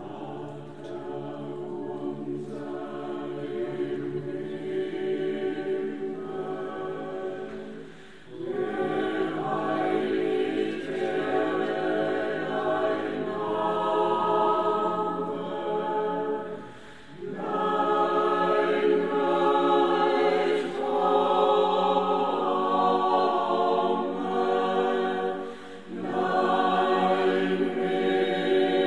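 Choir singing unaccompanied in long, held phrases, with short breaks about every eight or nine seconds; the first phrase is softer and the later ones fuller.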